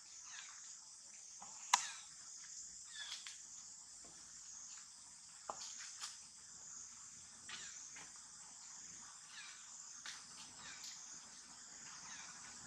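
Faint insect chorus, a steady high-pitched drone, with a few short sharp clicks and chirps scattered through it.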